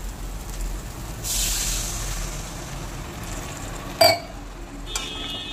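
Water poured into a hot kadai of frying spiced soybean and potato curry, hissing and sizzling suddenly about a second in, then dying down. A sharp metal clink near the end.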